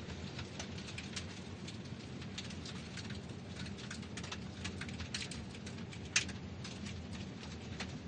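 Car tyres crunching over gravel: a steady low rumble with dense small crackles of stones, and one louder pop a little after six seconds.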